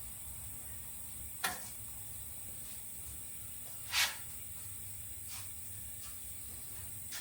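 Two short scrapes of a body-filler spreader drawn across a car panel, about a second and a half in and again at about four seconds, the second louder, over a faint steady hiss.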